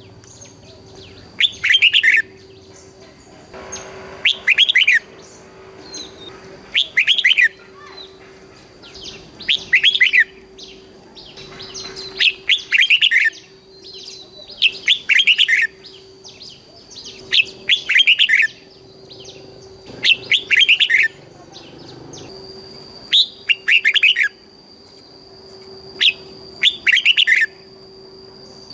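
Red-whiskered bulbul singing: short, loud whistled song phrases repeated about every two and a half seconds, over a faint steady electronic hum.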